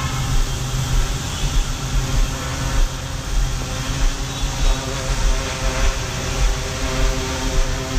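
A multicopter's electric motors and propellers whirring steadily in flight, several steady tones that drift slightly in pitch, over an uneven low rumble.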